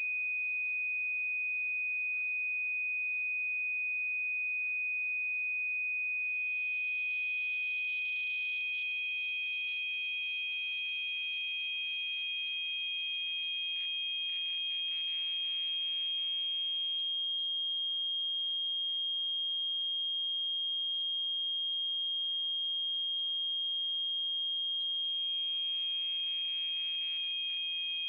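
Steady, high-pitched pure sine tones for tinnitus masking. One tone sounds alone at first, and a second, slightly higher tone fades in about six seconds in. The first fades out about two-thirds of the way through and fades back in near the end, so the two overlap.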